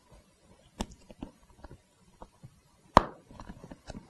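Scattered clicks and knocks as the J-clip on the bottom edge of a leather seat cover is worked onto the seat frame by hand and with a flathead screwdriver, with one sharp, loud knock about three seconds in.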